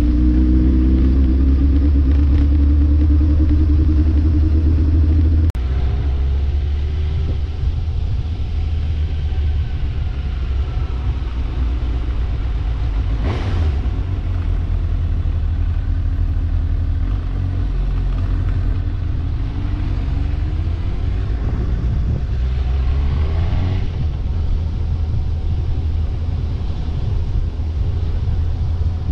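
A road vehicle's engine and road noise while driving on a mountain road. The engine pitch climbs for the first few seconds and then drops suddenly, as if the driver shifted or lifted off. There is a brief whoosh about halfway through, and the engine climbs again near the end.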